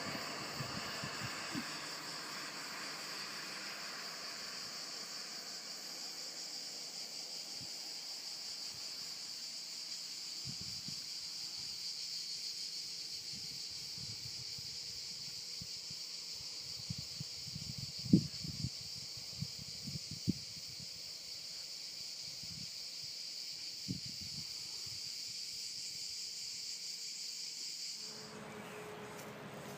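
Steady chorus of cicadas, one even high-pitched buzz. A few low thumps and knocks come through it in the middle, the sharpest about halfway. The buzz cuts off abruptly shortly before the end.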